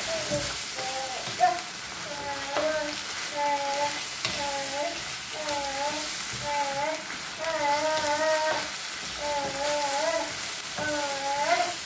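Ground beef and tomato paste sizzling in a nonstick frying pan, stirred and scraped with a wooden spatula. A sung melody repeats in the background.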